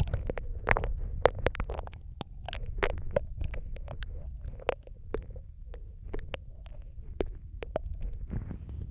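Wet mouth sounds close to the microphone: many irregular sharp clicks and smacks of lips and tongue, overlapping one another, over a steady low rumble.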